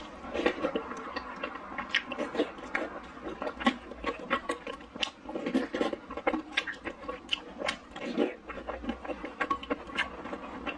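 Close-miked eating of sour soup dumplings: slurping hot broth from a ceramic spoon and chewing, with many short mouth clicks and smacks.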